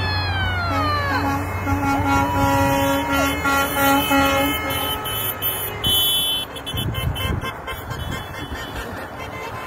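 Vehicle horns from a passing road convoy: a long air horn falling in pitch as it goes by, a second steady horn blast, and a rapid run of short honks, over a steady traffic rumble that is left alone for the second half.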